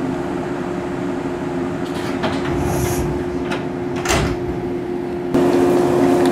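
Passenger sliding door of a JR 115-series electric train car opening about four seconds in, over a steady hum from the stationary car's equipment. A few clicks come before it, and the background gets louder near the end.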